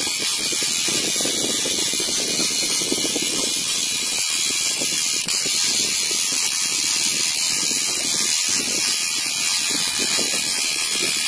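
Spinning reel ratcheting steadily under the strain of a hooked fish, heard over a steady hiss.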